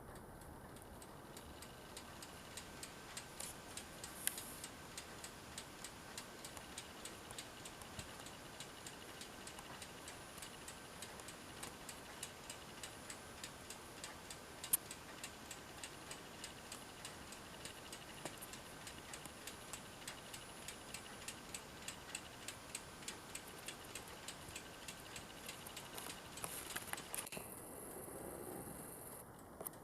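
Smith-Corona SE100 electronic daisywheel typewriter typing: a long even run of light impact clicks, about three a second, over the machine's faint steady electrical whine, which stops near the end.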